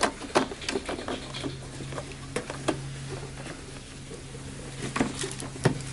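Scattered sharp plastic clicks and knocks with crinkling of protective plastic film as a Lexus IS300 headlight assembly is handled and fitted by hand, the loudest click at the very start. A faint steady low hum runs underneath from about a second in.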